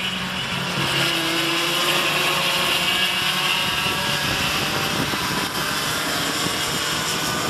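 Several cadet go-kart two-stroke engines running at race speed. Their overlapping engine notes make a steady drone.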